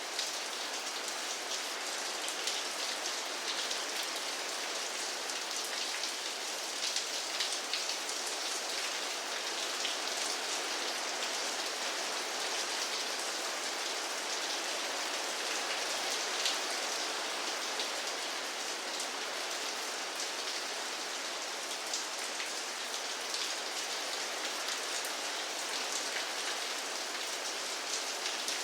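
Steady rain falling, a dense even hiss with many individual drops pattering on a surface.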